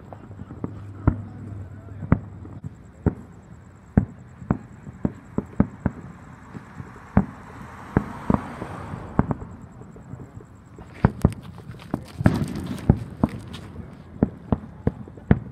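Fireworks going off: irregular bangs and pops from aerial shells, with a dense run of crackling pops about eleven seconds in.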